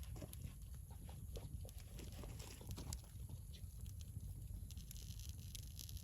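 Wood campfire crackling, with irregular sharp pops and snaps over a low, steady rumble.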